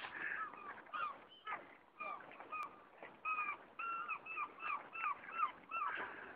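High-pitched, squealing laughter: a run of short squeaky cries, each bending downward, coming quicker and steadier after about three seconds in.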